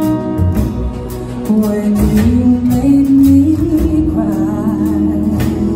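Live band performance: a woman singing lead over upright bass and guitar. The vocal line climbs in steps about two seconds in, then holds a note with vibrato.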